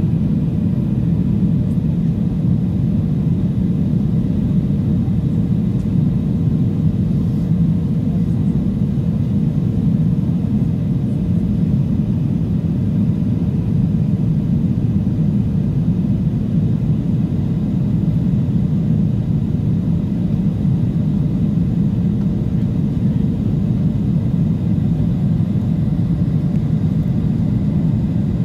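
Steady, deep cabin rumble of a Ryanair Boeing 737's jet engines and rushing airflow, heard from a seat beside the engine during the descent to land.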